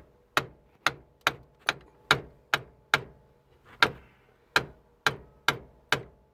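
Steel-headed hammer striking a manual impact driver set in a stripped rear axle bolt of a 1968 VW Type 2 van: sharp metallic blows about two a second, with a short pause a little past the middle.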